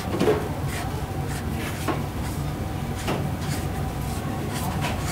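Ground beef being pressed by gloved hands into a stainless-steel ring mould to shape a burger patty: irregular soft knocks and squishes as the meat and ring are pushed against the board, the loudest just after the start. A steady low hum runs underneath.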